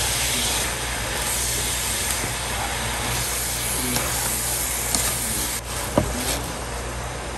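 Pea shoots and garlic sizzling in hot oil in a frying pan as they are stir-fried, a steady hiss with a few light clicks of the chopsticks against the pan, the sharpest about six seconds in. A steady low hum runs underneath.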